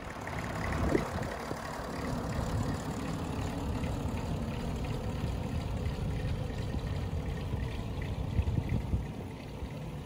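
A tractor-drawn trailed plough working through stubble: the tractor engine runs steadily under the noise of soil being cut and turned over.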